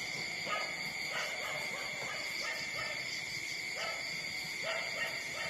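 Newborn puppies whimpering while nursing: short, rising squeaky calls repeated about one to two times a second.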